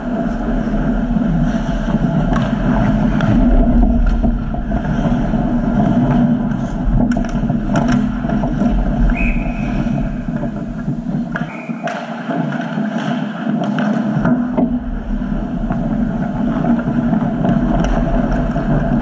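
Ice hockey play around the goal: a steady low rumble of rink noise, with several sharp clacks of sticks and puck.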